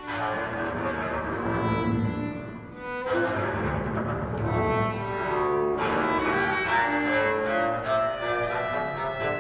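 String trio of violin, cello and double bass playing bowed contemporary chamber music: overlapping held notes over a deep bass line, with new entries at the start and again about three seconds in.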